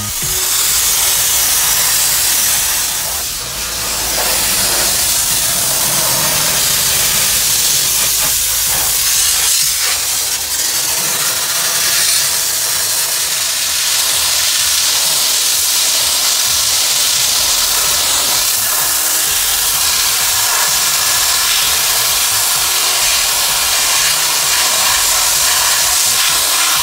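Homemade sandblaster, built from used air-compressor tanks, blasting through its hose nozzle: a loud, steady hiss of compressed air and sand, easing briefly about three and a half seconds in.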